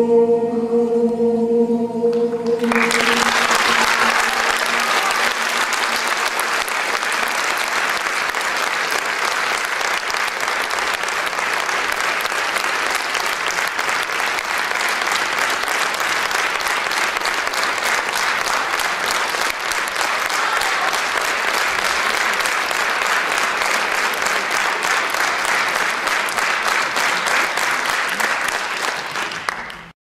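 A held final chord of choral music ends about two and a half seconds in, and an audience breaks into steady applause, which is cut off at the end.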